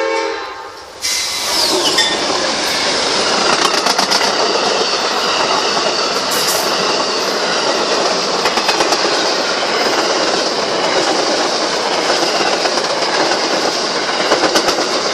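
A train horn sounds briefly at the very start. Then an Amtrak passenger train passes close at speed: a steady rush of wheels on rail, with clusters of clicks as the wheels cross rail joints.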